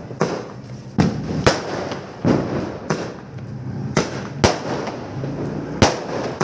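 Diwali fireworks and firecrackers going off: about nine sharp bangs at uneven intervals, over a steady din of crackling between them.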